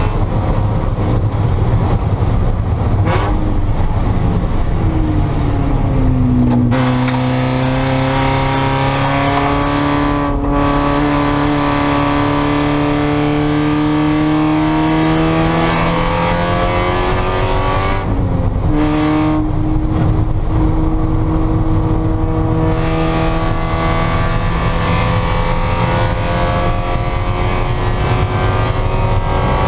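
Spec Miata race car's four-cylinder engine pulling hard under full throttle, its pitch climbing slowly through each gear, with sharp breaks and pitch drops about six seconds in and again near two-thirds through as the driver lifts and shifts. A steady rush of wind and road noise runs under it.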